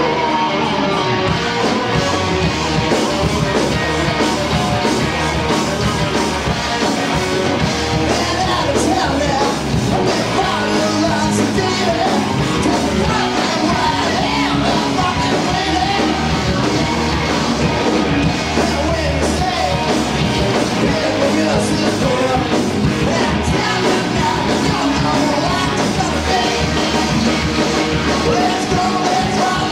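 Live rock band playing loud: amplified electric guitars, bass guitar and a drum kit, with a lead singer singing into a microphone over them.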